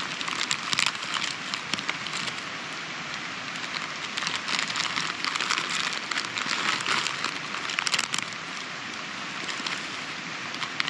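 Plastic pasta packet crinkling and dry pasta clicking and snapping as it is dropped into a pot, with many small crackles over a steady rushing hiss.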